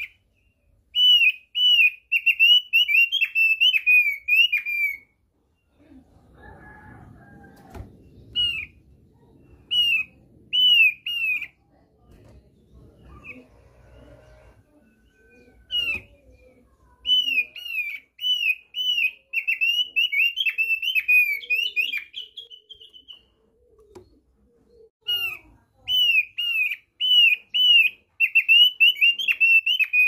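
Opior paruh tebal, a caged songbird, singing in repeated bursts of quick, clear, downward-slurred whistled notes, each run lasting a few seconds with pauses between. A soft rustling comes about six to eight seconds in.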